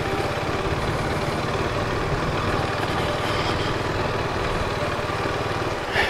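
KTM RC390's single-cylinder engine running steadily at low revs, with a fast, even beat.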